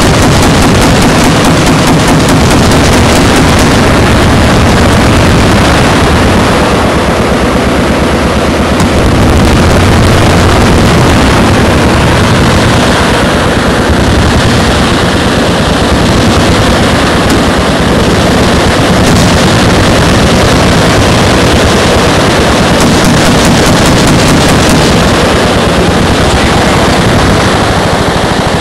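Many machine guns firing at once, a dense, continuous rattle of overlapping shots over a low rumble, loud enough to overload the microphone.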